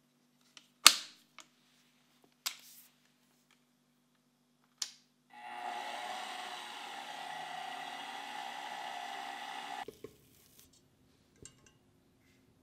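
A few sharp knocks, the first one the loudest. About five seconds in, a stand mixer's motor starts and runs steadily for about four seconds while its flat beater mixes dry ingredients into chocolate cookie dough, then stops.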